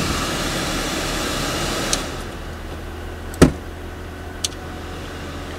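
2010 Toyota Yaris air-conditioning blower fan running as a steady rush, turned down about two seconds in, with a few sharp clicks from the climate-control knobs. The loudest click comes about three and a half seconds in. A low hum from the idling engine runs underneath.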